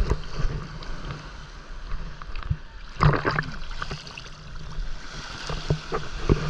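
Rushing water and wind noise with scattered knocks and clicks, loudest about three seconds in, over a steady low hum.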